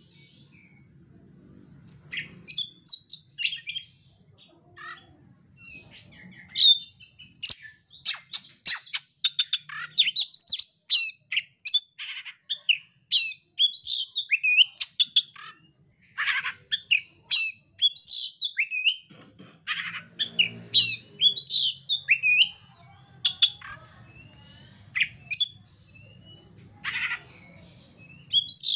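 Oriental magpie-robin (kacer) singing: a long run of varied whistles, chirps and sweeping notes, with a fast burst of rapid sharp chattering notes about eight to eleven seconds in.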